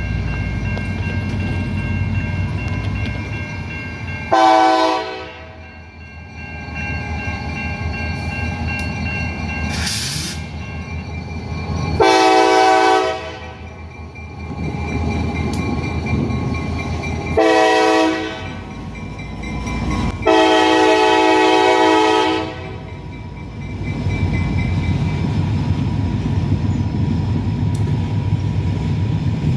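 Diesel locomotive air horn sounding four blasts spaced several seconds apart, the third short and the last the longest, in the long-long-short-long pattern used at grade crossings. A steady low rumble of the moving train runs between the blasts.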